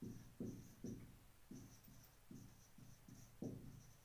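Whiteboard marker writing on a whiteboard: a faint run of short strokes, about two a second.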